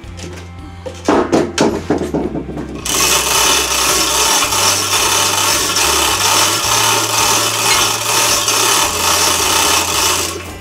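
A ceiling-hung chain hoist (chain falls) lifting the front of a zero-turn mower. A few clanks of the chain open it, then the hand chain runs through the block in a steady rattle for about seven seconds and stops suddenly near the end.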